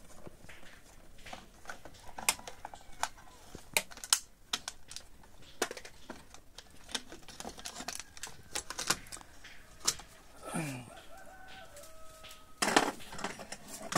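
Screwdriver clicking and scraping against a plastic modular switchboard as its screws are undone and the front plate is pulled open. Near the end a long pitched call sounds in the background, followed by a louder rustling stretch.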